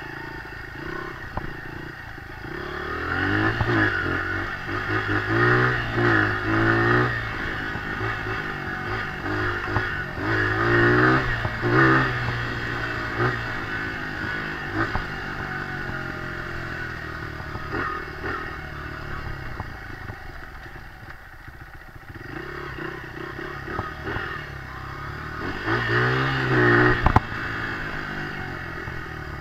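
Small dirt bike engine running as it rides a trail, revving up and down in repeated surges and easing off in the middle. There is a single sharp knock near the end.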